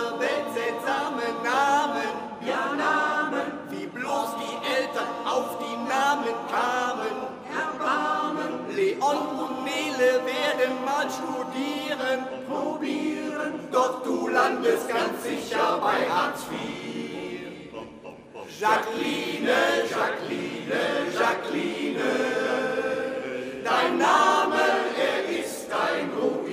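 Male-voice choir singing a cappella, several voices in harmony, with a short break between phrases a little past halfway.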